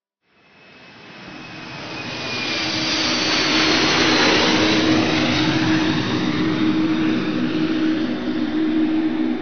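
Twin-engine jet airliner on low landing approach. Its noise swells up from silence over about three seconds, with a high whine falling in pitch as it comes past, then holds loud and steady over a low hum.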